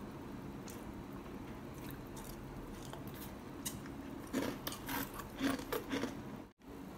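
Crunchy salted-egg cornflakes being bitten and chewed, with a quick run of crisp crunches over about two seconds in the second half, after a few faint clicks.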